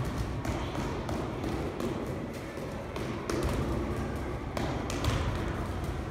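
A football being worked with quick inside-foot touches and toe taps. Boots knock the ball and step on artificial turf in a quick, uneven run of soft taps and thuds.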